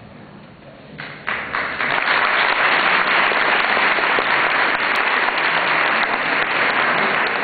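Audience applauding: a few scattered claps about a second in, swelling quickly into steady, full applause.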